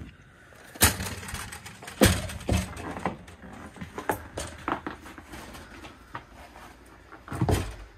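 Footsteps and knocks as someone climbs up into a travel trailer through its entry door and walks across its floor: a scattering of sharp thumps, loudest about a second in, about two seconds in and near the end.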